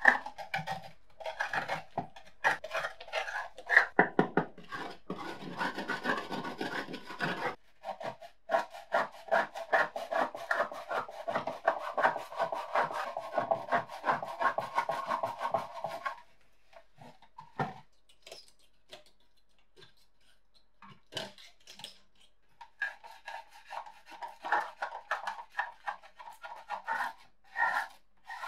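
A hand tool scraping rust and flaking paint off the painted sheet-metal body of an old kitchen scale, in rapid back-and-forth strokes. The strokes stop for several seconds past the middle, leaving only a few scattered ticks, then start again near the end.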